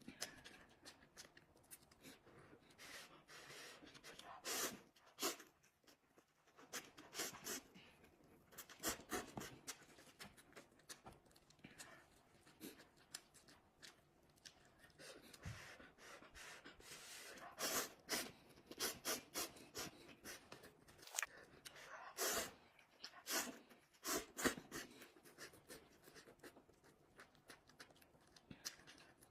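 Close-miked eating of instant noodles: chewing and slurping mouth sounds, a quick irregular run of short wet clicks and smacks.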